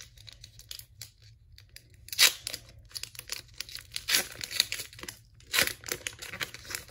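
Foil wrapper of a Pokémon Rebel Clash booster pack being torn open and crinkled by hand, with steady crackling and louder rips about two, four and five and a half seconds in.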